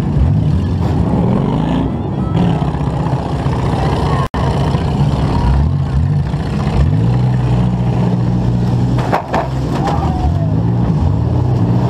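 Demolition derby compact car's engine revving up and down again and again as it maneuvers, heard from the hood-mounted camera. A short, sharp crash-like knock comes about nine seconds in, and the sound cuts out for an instant a little after four seconds.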